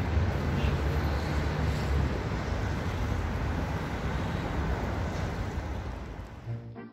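Steady city street traffic noise: a broad rumble with a low engine hum underneath, fading out near the end.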